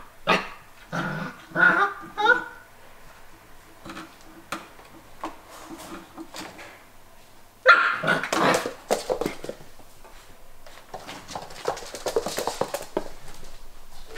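Five-and-a-half-week-old Belgian Malinois puppy yipping and barking in play: a quick run of short calls in the first couple of seconds, and a louder burst about eight seconds in. Scattered light clicks and scuffles follow near the end.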